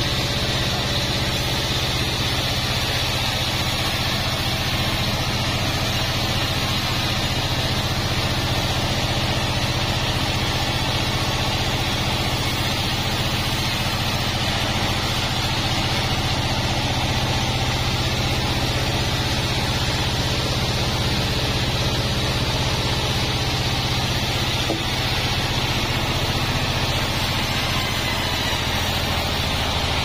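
A 36-inch band sawmill running steadily as its blade saws through a wadang log, a steady low hum under an even hiss.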